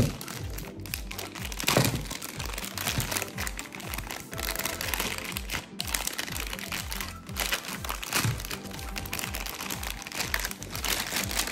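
Clear plastic packaging bag crinkling and crackling as hands tear off its seal tape and pull a phone box out, with the sharpest crackles at the very start and about two seconds in. Background music with a steady low beat runs underneath.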